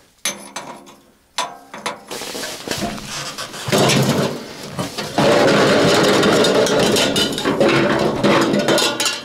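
Sheet-steel tent stove and its chimney pipe sections being handled: a few metal clanks, then from about four seconds a longer, louder stretch of metal scraping and rattling.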